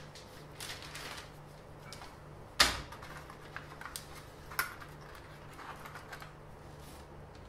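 Light clicks and rustles of tools and a flexible drafting ruler being handled on a workbench covered with paper, with one sharp knock about two and a half seconds in and a smaller one near the middle, over a faint steady hum.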